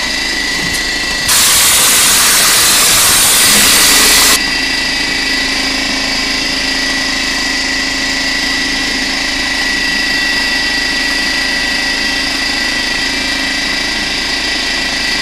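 Air compressor running steadily, with a loud hiss of compressed air from a stucco hopper gun spraying cement onto a wall for about three seconds, starting about a second in.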